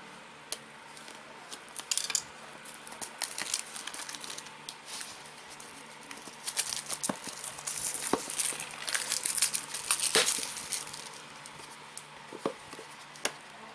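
Clear plastic shrink-wrap being torn and peeled off a small cardboard gadget box, crinkling and crackling, busiest in the middle stretch and dying down to a few clicks near the end.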